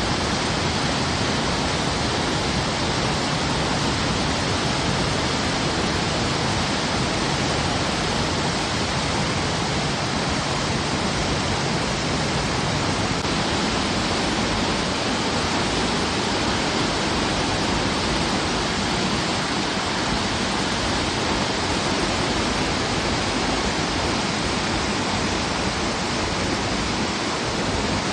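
Mountain river water rushing steadily below a waterfall: a loud, even, unbroken rush.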